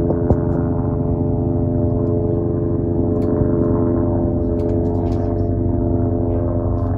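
Eurocopter AS350 helicopter's rotor and turbine running steadily in flight, a steady hum of several fixed tones over a low rumble.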